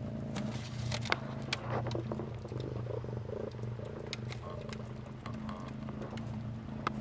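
Domestic cat purring steadily while being stroked, with a few light clicks and rustles of handling.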